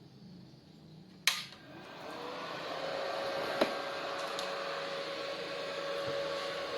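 A click as the small Ryu welding transformer is switched on; its cooling fan then spins up, rising in pitch, and settles into a steady hum with a hiss. Another short click comes a couple of seconds later.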